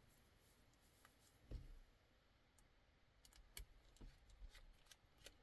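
Near silence with faint handling noise from small knife parts: a soft thump about a second and a half in, then a scatter of light, sharp clicks over the last two seconds.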